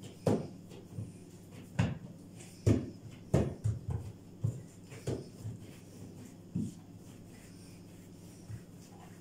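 Hands patting and pressing a piece of soft dough against a silicone baking mat on the counter: a run of irregular dull thumps, about a dozen, thinning out and growing fainter after about seven seconds as the dough is rolled into a finger.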